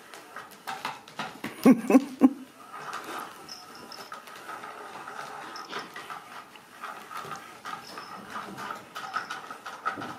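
Ragdoll kittens playing: claws scrabbling and scampering, with many small clicks and scratches, and three short loud cries close together about two seconds in.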